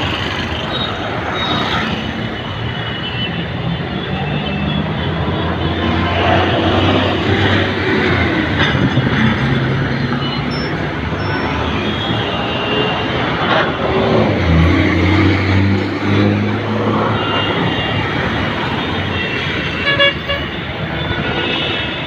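Heavy road traffic close by: the engines of trucks, a bus, cars and auto-rickshaws running in a steady din, with vehicle horns tooting briefly now and then. A heavy engine hums louder at close range around the middle.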